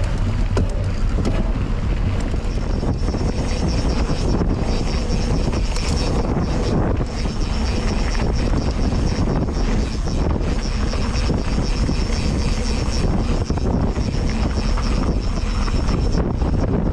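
Steady, loud drone of an aircraft engine. A thin high whine joins about two seconds in.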